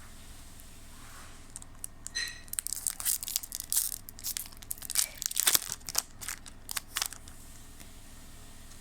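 Foil Pokémon booster pack wrapper being crinkled and torn open: a run of crackly rustling and tearing that starts about a second and a half in and stops about five seconds later.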